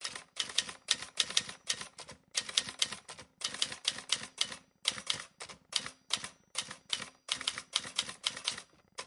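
Typing sound effect: rapid key clicks in short runs with brief pauses between them.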